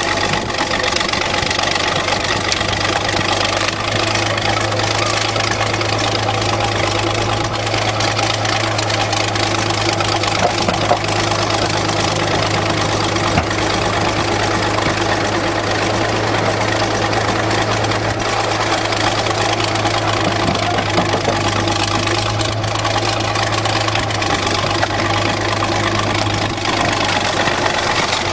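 An engine idling steadily at a constant speed, with an even low hum and knocking.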